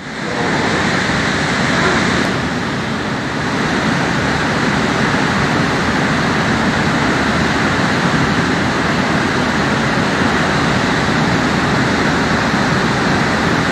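Floodwater torrent of a swollen river rushing over rocks and under a footbridge: a loud, steady rush of water.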